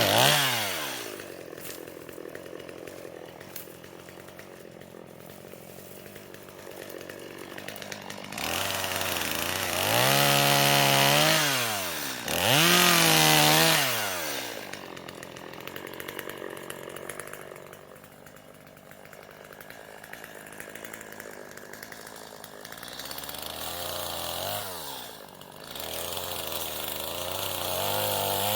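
Two-stroke chainsaw idling, revved to full throttle in two bursts of about two seconds each near the middle, and dropping back to idle after each. Near the end it revs up again.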